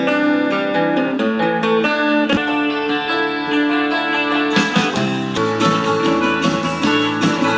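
Intro music played on guitar: plucked and strummed notes, denser strumming in the second half.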